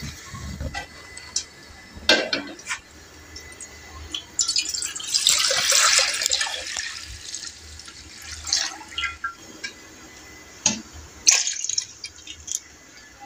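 Milk poured from a container into a large aluminium pot, splashing loudest in a long pour about five to seven seconds in and again briefly near the end, with a few sharp knocks in between.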